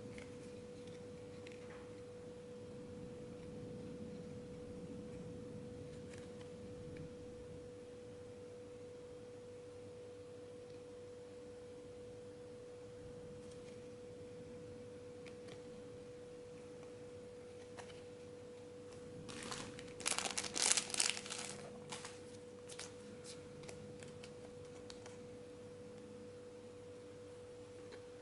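Trading-card packaging being handled: a short burst of crinkling and tearing about twenty seconds in, with a few lighter crackles after, over a steady faint mid-pitched tone.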